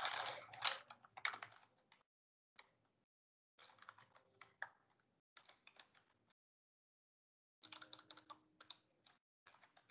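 Faint computer keyboard typing: short runs of rapid key clicks in several bursts, separated by gaps of dead silence.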